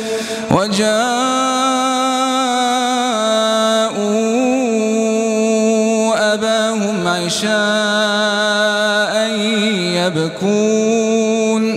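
A man reciting the Quran in melodic tajwid style, holding long steady notes and bending the pitch between phrases, with short pauses for breath every few seconds.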